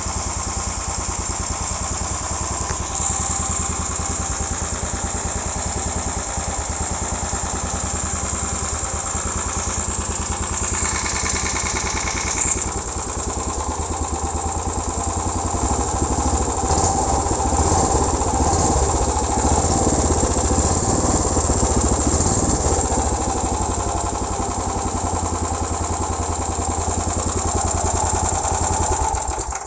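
Small genset engine on a motor-style bicycle, running steadily and getting a little louder in the second half.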